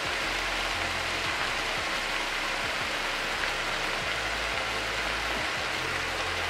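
Chicken pieces with onion, tomato and garlic frying in oil in a nonstick skillet: a steady sizzling hiss.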